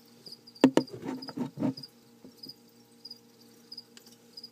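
Crickets chirping in a steady run of short, high chirps. A cluster of knocks and rustles comes about a second in.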